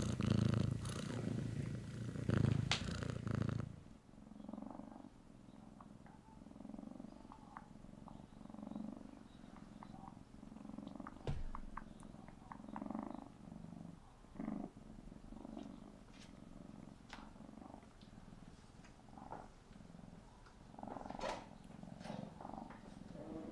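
Tabby kitten purring in a steady rhythm of swells about a second apart while suckling and kneading, with short wet lip-smacking clicks. The purring is louder for the first four seconds, then quieter, and the smacks come more often near the end.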